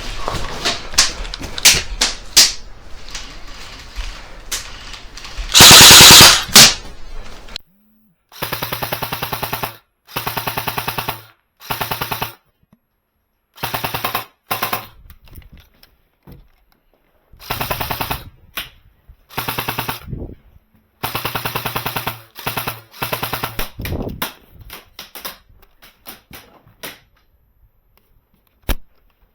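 Airsoft guns firing on full auto: a few scattered shots and one very loud close burst about six seconds in, then a dozen or so short bursts of rapid fire, each about a second long, with silence between them.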